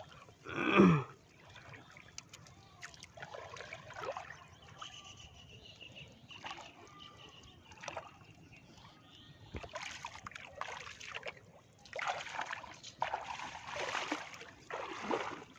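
Water splashing and trickling, with scattered splashes that grow busier in the last few seconds. About a second in, a short loud vocal cry drops in pitch.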